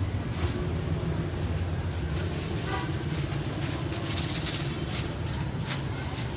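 A thin plastic bag crinkling and rustling for a few seconds as food is tipped into it from a steel bowl, over a steady low rumble.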